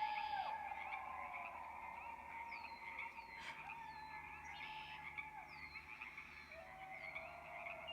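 Distant people howling in long held tones that slide down in pitch, over a steady chorus of frogs calling.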